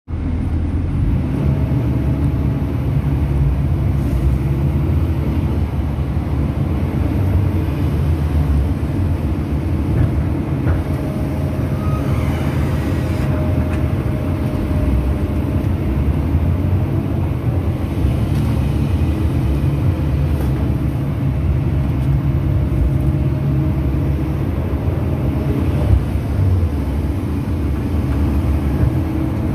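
Long-reach excavator's diesel engine running steadily, a dense low drone with a faint higher tone above it.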